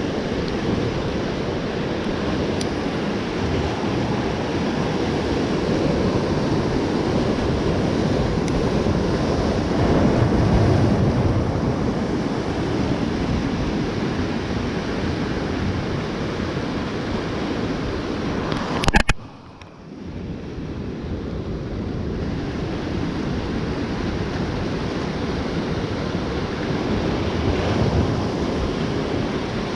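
Ocean surf churning and washing over lava rocks, with wind buffeting the microphone. About two-thirds of the way through there is a sharp knock, after which the sound drops away for a moment and then returns.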